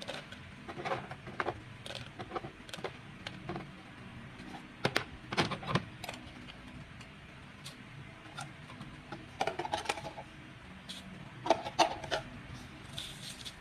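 Scattered light knocks and clinks as chilies, garlic and sugar are dropped and spooned into a glazed clay mortar, with a couple of short ringing clusters near the end.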